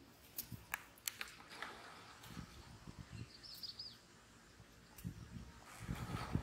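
Quiet outdoor ambience with a bird giving a short warbling chirp about halfway through. A few faint clicks early on and soft low knocks near the end.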